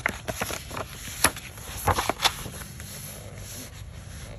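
Pages of a hardcover art book being turned by hand: paper rustling, with several sharp flaps and taps over the first two and a half seconds.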